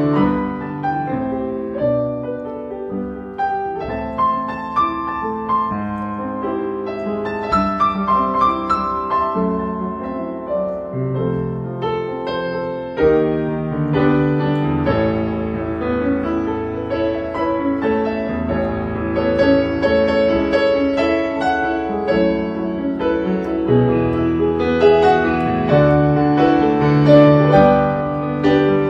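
Background piano music: a melody over chords at a gentle, steady pace.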